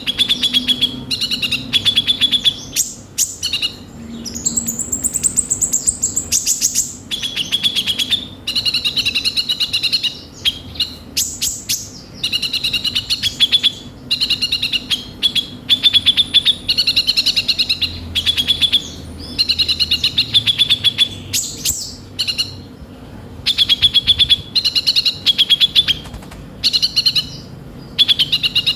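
Kolibri ninja sunbird singing its harsh, full song: phrase after phrase of rapid chattering trills, each lasting a second or two with short breaks between. A few seconds in, there is a thin, very high note.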